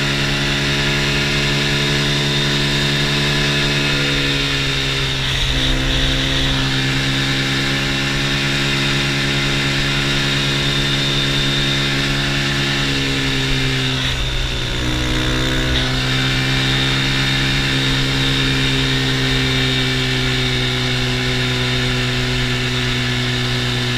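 ATV engine running steadily under way. Its pitch drops and climbs back about five seconds in, and again about fourteen seconds in.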